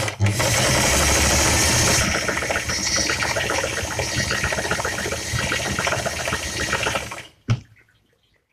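Singer 319K zigzag sewing machine running at speed, stitching a decorative zigzag: a rapid, steady clatter of needle strokes, louder for the first couple of seconds. It stops abruptly about seven seconds in, followed by a single click.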